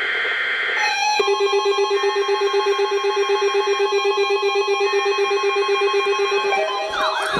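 NOAA Weather Radio alert test: a buzzing data burst ends under a second in, then the warning alarm tone sounds, a steady electronic tone with a quick pulsing flutter, for about five seconds. Just before the end a wavering siren sound starts.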